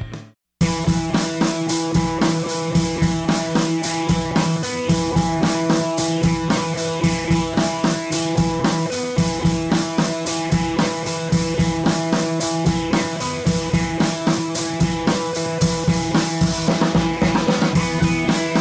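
Background music with a steady drum beat, starting about half a second in after a brief silent gap.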